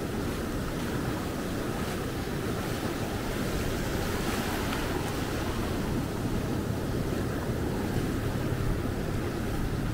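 Ocean surf breaking and washing up the beach in a steady rush, with wind rumbling on the microphone that grows stronger about six seconds in.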